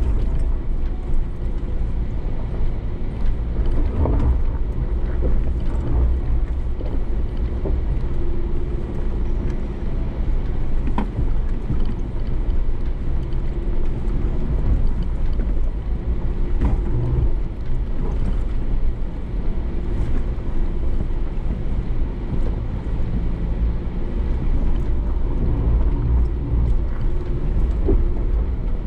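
Ford Bronco engine running steadily through slow off-road driving, with scattered knocks and clunks.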